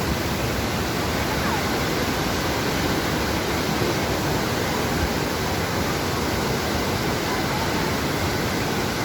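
Waterfall, its falling water making a steady, even rushing noise with no breaks.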